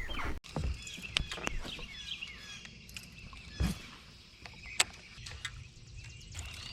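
Faint outdoor ambience with small bird chirps, broken by a few sharp clicks and a single low thump about three and a half seconds in.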